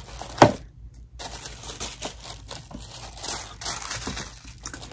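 Wrapping on a subscription box being unwrapped by hand: a single sharp snap about half a second in, then a run of paper crinkling and rustling.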